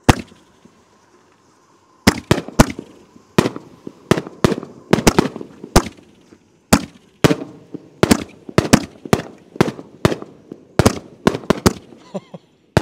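Double-break aerial artillery shells fired together from mortar tubes. A single sharp launch bang comes first; about two seconds later a long irregular run of sharp bangs begins as the shells burst in the sky, their first and second breaks overlapping, and it goes on for about ten seconds.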